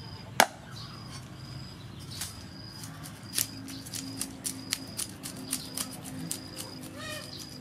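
A knife scraping the scales off a whole fish on a wooden chopping board: a run of quick, sharp scrapes several times a second, after one loud sharp knock about half a second in. A short, high chirp repeats about once a second in the background.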